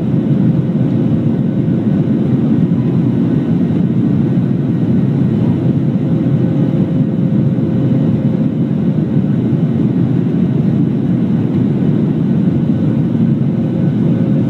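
Jet airliner cabin noise during the climb after takeoff: a steady, loud rumble of engines and rushing air, with a faint steady hum on top.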